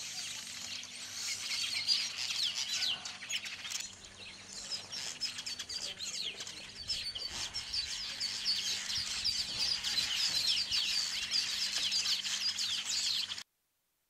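A colony of yellow weaver birds chattering around their woven nests: many rapid, high chirps overlapping in a dense chorus, which cuts off suddenly near the end.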